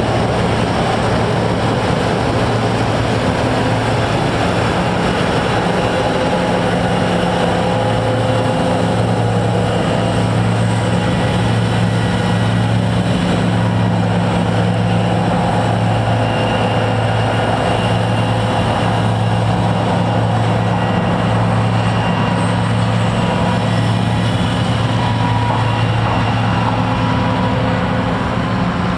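John Deere 2066 combine harvester running steadily while harvesting: an even mechanical drone of engine and threshing machinery over a low hum.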